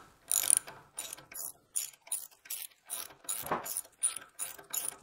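Socket ratchet wrench clicking in quick, repeated strokes, about three a second, as a tight bolt is worked loose.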